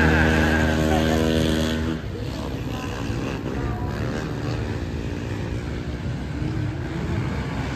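A vehicle engine running loud at a steady speed stops abruptly about two seconds in. Quieter, rougher engine noise carries on after it.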